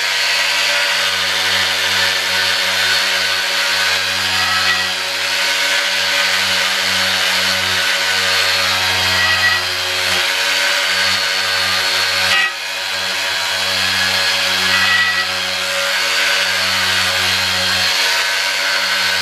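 Small corded handheld power tool with a sanding head, running steadily as it sands cured JB Weld epoxy filler on an aluminium motorcycle wheel. Its steady motor sound dips briefly about twelve seconds in.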